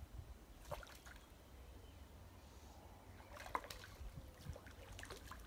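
Near silence by a small river: a faint trickle of flowing water over a low rumble, with a few faint clicks about a second in and again past the middle.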